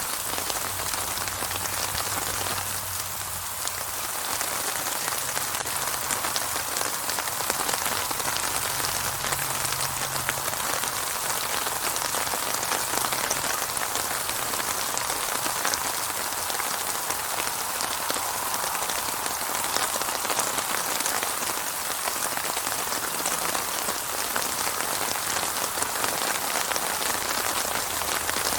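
Steady rain falling, a dense even patter of drops on surfaces with no thunder.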